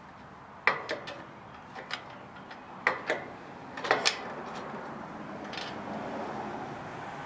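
Sharp clicks and knocks of hardware and a bumper foot being handled and fitted against a generator's tubular steel frame while it is bolted on, about seven of them in the first four seconds, some in quick pairs, then quieter handling.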